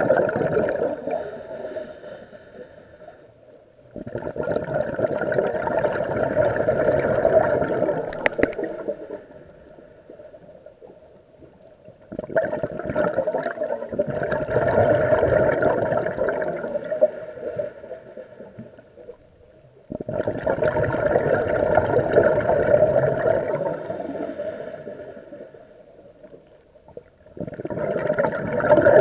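Scuba regulator exhaust of the diver carrying the camera: gurgling bursts of exhaled bubbles about every eight seconds, each starting suddenly and fading away, with quiet pauses for the in-breaths between them.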